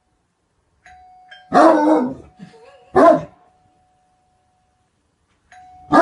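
Great Dane barking: a long, deep bark about a second and a half in, a short bark at about three seconds, and another long bark starting near the end.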